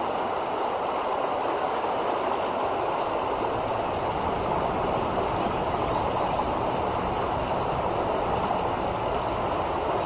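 River water rushing steadily over shallow rapids, a continuous even rush with no breaks.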